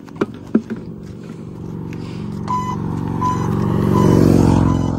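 Motorcycle engine passing close by on the road, growing louder to a peak about four seconds in, then easing off. A couple of sharp knocks come right at the start, and a short high beep repeats about every three quarters of a second through the second half.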